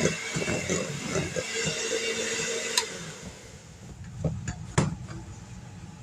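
Electric mixer beating cream cheese and butter into a smooth mix. It runs steadily, then stops about halfway through, followed by two sharp knocks.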